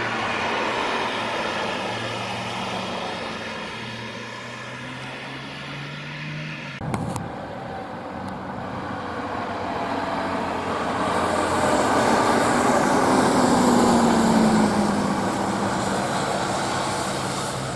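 A car's engine running steadily as it drives past, then after a sharp break a coach bus and a hatchback driving by on the track: the engine sound swells to its loudest well past the middle, with an engine note falling in pitch as they pass, then eases off.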